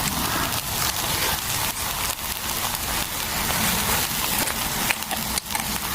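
Flatbread batter sizzling and crackling in a hot oiled pan as it fries, a steady hiss scattered with small pops.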